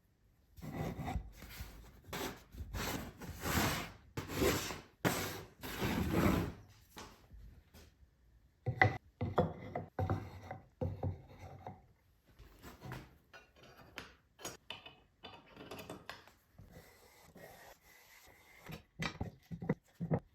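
Wood being rubbed or rasped by hand in repeated strokes, about one or two a second for the first several seconds, then quieter, shorter scrapes and knocks.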